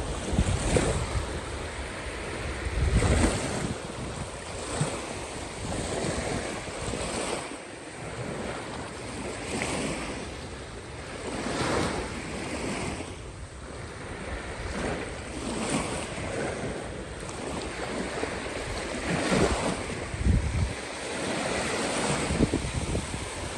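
Caspian Sea waves breaking and washing in, swelling and falling every couple of seconds. Wind buffets the microphone with low rumbling gusts near the start, about three seconds in, and again near the end.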